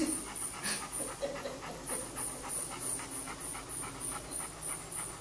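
Golden retriever panting steadily with its mouth open, in quick, even breaths.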